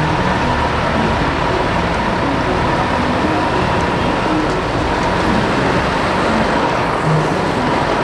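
Heavy road-construction machinery running steadily, a continuous engine and working noise at an even level.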